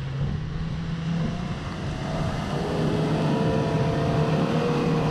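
Toyota FJ Cruiser's V6 engine running under load as the truck drives through a muddy field, growing louder from about halfway in as it comes closer.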